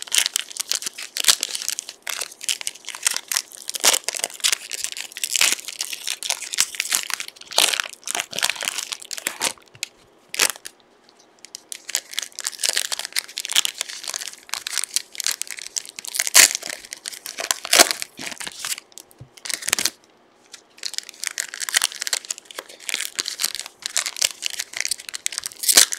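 Plastic-foil trading card pack wrappers crinkling and tearing as packs are ripped open and handled, in dense bursts of rustling and crackling with two short pauses.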